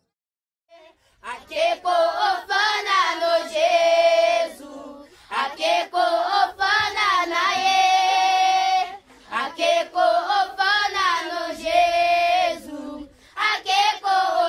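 A children's choir singing together in held, sustained phrases, with short pauses between them. The singing begins about a second in.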